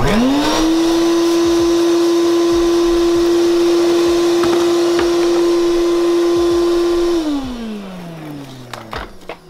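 Shop vac switched on: the motor spins up within a fraction of a second to a steady whine, runs for about seven seconds, then is switched off and winds down with falling pitch.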